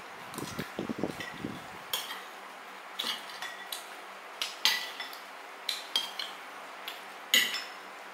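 Eating utensils clinking and scraping against dishware during a meal: a dozen or so short, sharp clinks with a brief ringing, irregularly spaced, the loudest about four and a half and seven and a half seconds in.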